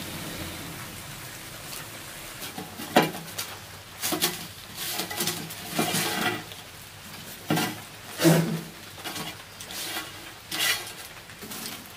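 A stick raking leaf-wrapped roasted fish out of glowing embers in a mud stove and knocking it onto a steel plate: a run of irregular scrapes, clatters and ringing metal clinks starting about two or three seconds in.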